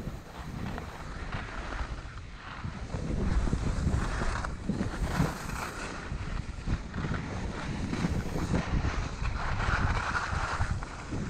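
Skis hissing and scraping over packed snow through turns, the scrape swelling twice, with wind rumbling on the GoPro Hero 6 microphone during the downhill run.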